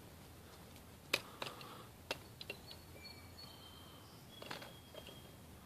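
A few light clicks and knocks of metal parts and tools being handled, with the loudest about a second in, and faint thin high chirps or squeaks in the middle.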